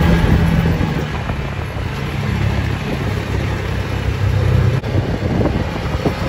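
Side-by-side off-road buggy's engine running steadily while driving, heard from inside the open cab, with wind and road noise over it. A single click sounds about five seconds in.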